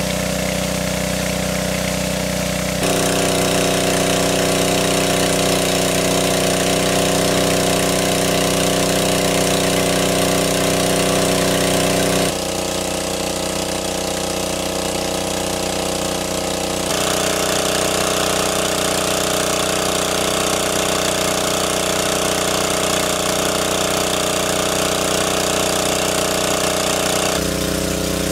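Small engine-driven water pump running steadily, a continuous drone. Its pitch and loudness jump abruptly several times.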